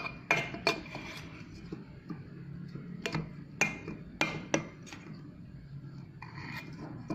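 A spoon clinking and scraping against a bowl while stirring slime. There are several sharp clinks in the first second and more between about three and four and a half seconds in.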